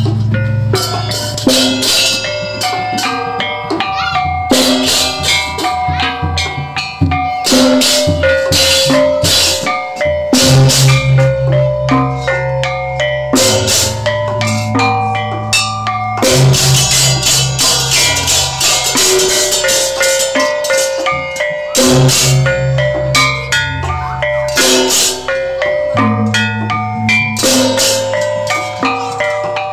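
Balinese gamelan played by children: hand cymbals (ceng-ceng) crash in quick interlocking strokes while small bronze kettle gongs struck with mallets ring out repeating pitched notes. A deep sustained tone comes back every few seconds underneath.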